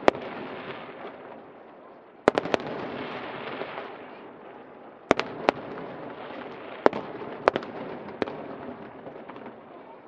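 Aerial fireworks bursting: about eight sharp bangs in small groups, each followed by a crackling hiss as the shells break open.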